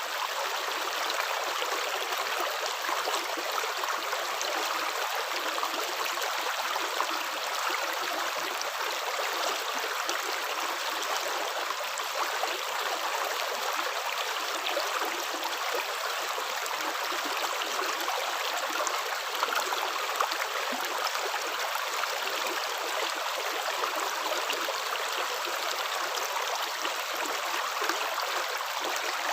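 Running water flowing steadily, like a shallow stream, with small splashy ticks here and there.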